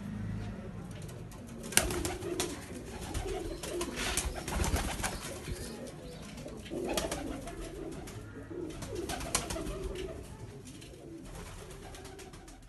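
Domestic pigeons cooing, low warbling coos repeating over and over, mixed with scattered sharp clicks and scuffs, the loudest click about two seconds in.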